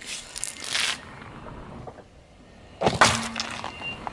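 A car tyre crushing a wrapped packaged block, with a crackling crunch in the first second. About three seconds in comes a louder burst as a plastic yogurt cup splits open under the tyre.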